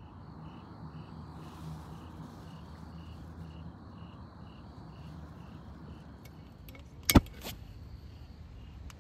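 Low, steady rumble of a passing train, with insects chirping evenly about twice a second. A sharp clack about seven seconds in, with a smaller one just after, is the loudest sound.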